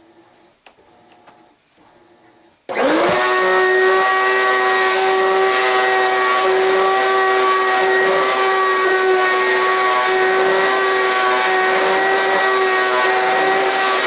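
Oreck XL2 upright vacuum cleaner switched on almost three seconds in. Its motor comes up to speed almost at once and then runs with a loud, steady whine and a strong pitched hum.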